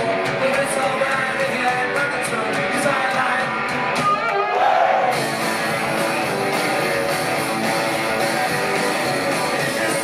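Live rock band playing: electric guitar, drums and a lead vocal, with a short rising glide about four seconds in.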